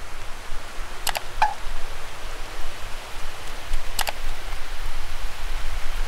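Wind rumbling on an action camera's microphone over an even hiss, with a few sharp clicks about a second in and again near four seconds.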